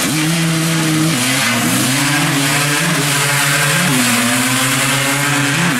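Two ATV engines at full throttle launching off the line in a drag race, a two-stroke three-wheeler against a quad. They start suddenly and climb through the gears, the pitch dropping at each upshift, about a second in and again near four seconds.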